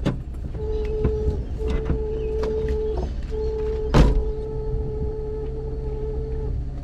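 A Jeep Wrangler heard from inside the cabin: a steady low engine and road rumble, with a whine that keeps cutting in and out. A few sharp knocks come through, the loudest about four seconds in.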